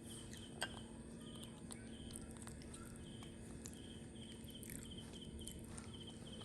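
Faint background chirping, high and evenly repeated about twice a second, over a steady low hum, with scattered small clicks and one sharper click less than a second in.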